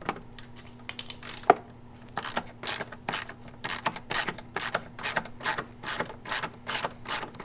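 Hand socket ratchet on an extension loosening a headlight bolt, its pawl clicking. A few scattered clicks and one sharp click come first, then an even run of about three to four clicks a second from about two seconds in.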